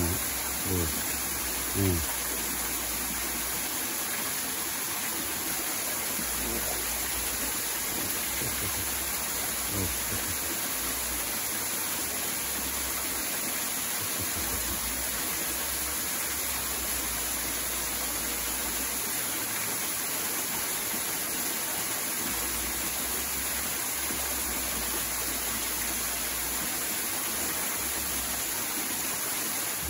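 A small stream spilling over rocks into a shallow pool, making a steady rushing hiss of running water.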